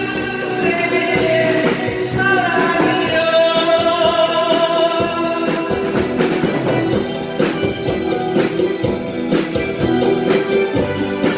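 Live band music: a singer holds the last note of a sung line over the first few seconds, then an instrumental break follows with a drum kit keeping a steady beat under sustained keyboard chords.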